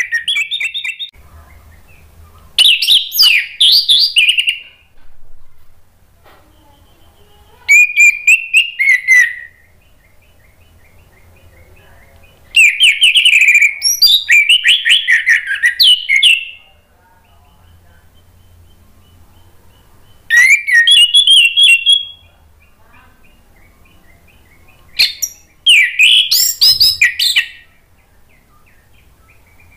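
Orange-headed thrush singing loud, varied song phrases in full voice: about six bursts of rapid, changing notes, each one to four seconds long, with short pauses between them.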